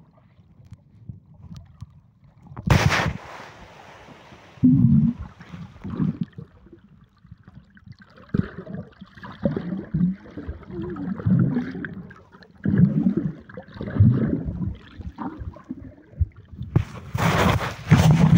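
Muffled underwater sloshing and gurgling of water moving around a submerged phone's microphone, coming in uneven surges with swimming strokes. About 17 seconds in, the phone breaks the surface and a loud rush of splashing water and air noise starts.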